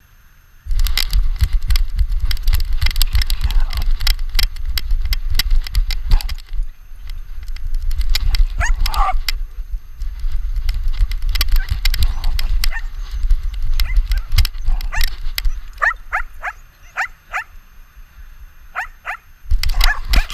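Dogs barking and yipping in short, sharp calls, one near the middle and a run of them in the last few seconds, over a constant rumble and knocking from an action camera strapped to a running dog's harness.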